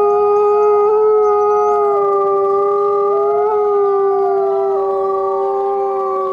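A pack of wolves howling together: several long howls overlap at different pitches, each held nearly steady with slight slides, lasting through the whole stretch.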